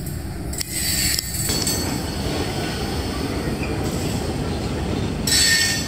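Freight train cars rolling across a timber trestle: a steady low rumble of wheels on the rails, with high-pitched wheel squeal about a second in and again near the end.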